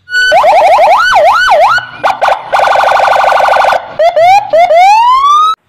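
Electronic siren of a Toyota police car cycling through its tones: a quick yelp, two slower wails, a rapid pulsing warble, then a run of rising sweeps that cuts off suddenly.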